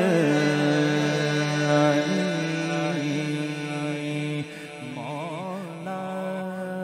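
Male reciter singing an Urdu manqabat (devotional song in praise of Ali) into a microphone. He draws out a long, ornamented note whose pitch wavers up and down, over steady held notes underneath. The voice drops in level about four and a half seconds in, then starts a new wavering phrase.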